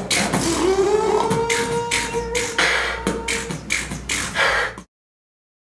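Human beatboxing: quick mouth-made drum strikes with a hummed tone that slides upward and is held over the beat. It stops abruptly about five seconds in.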